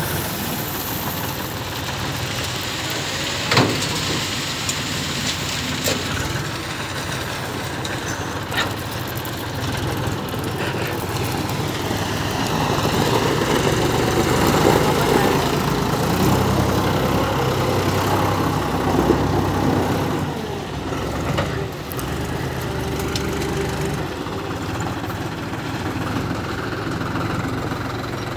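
Tractor diesel engine running steadily while its hydraulic front-end loader works, getting louder for several seconds midway through as it takes the load. A few short sharp knocks sound in the first nine seconds.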